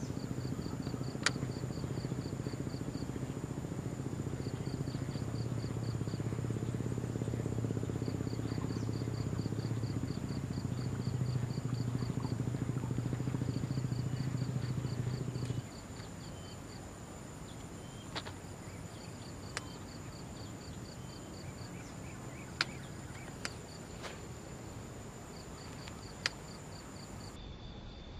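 Kastking Royale Legend II BFS baitcasting reel cranked steadily to retrieve a lure: a low, even whirring that stops abruptly a little past halfway. Insects chirp in short rapid trains throughout, and a few sharp clicks follow in the quieter second half.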